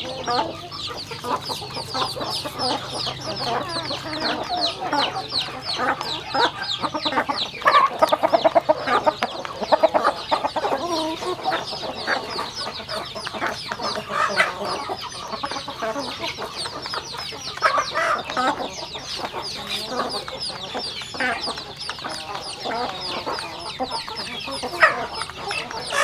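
A flock of chickens feeding: chicks peeping continuously in rapid high calls, with hens clucking over them, the clucking strongest about eight to eleven seconds in.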